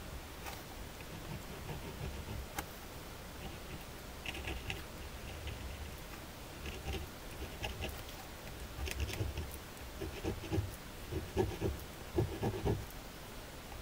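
Ballpoint pen scratching across paper in short, irregular strokes, with small taps and rubs of the hand on the sheet. The strokes come thicker and louder in the last few seconds.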